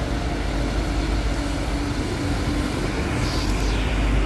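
Diesel intercity coach driving slowly past on wet pavement: a steady low engine rumble with tyre noise, and a brief hiss a little over three seconds in.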